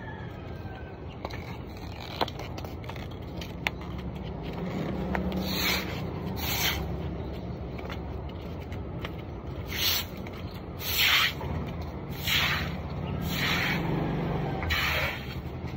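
A broom sweeping rough concrete pavement in a series of scratchy swishes, about seven strokes at uneven intervals in the second half, with two sharp clicks near the start.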